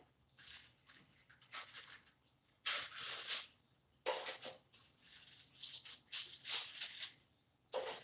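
Hard taco shells being handled and set on a metal baking sheet: a series of short, crisp rustling scrapes, about six in the stretch.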